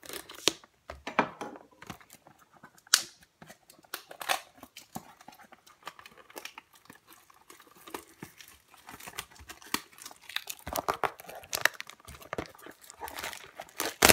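Hands tearing open and unwrapping a sealed trading-card hobby box: irregular crinkling, ripping and cardboard rustling, busier in the last few seconds.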